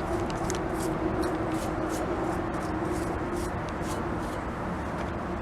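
Paintbrush brushing aircraft paint stripper onto a powder-coated metal scooter frame, with short scratchy strokes several times a second. A faint steady hum runs underneath and fades out partway through.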